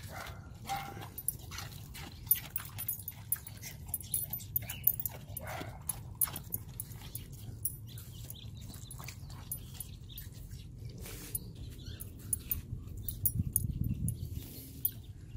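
Two dogs eating watermelon: a small dog chewing a large chunk and a Siberian husky licking up pieces, heard as many irregular wet chewing clicks and smacks over a steady low rumble.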